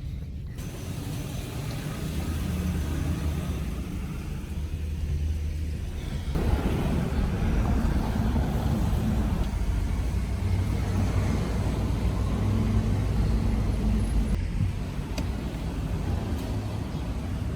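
Steady low rumble of a moving road vehicle, like engine and road noise heard on the move. It becomes louder and fuller about six seconds in.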